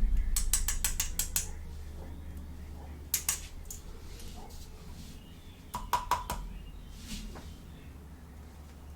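Small plastic toy kitchen pieces being handled and clicked together: a quick run of light clicks near the start, then two shorter clusters of clicks about three and six seconds in.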